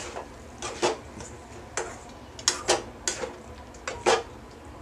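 Steel spoon stirring thick chicken masala in a metal kadhai, clinking and scraping against the pan at irregular intervals.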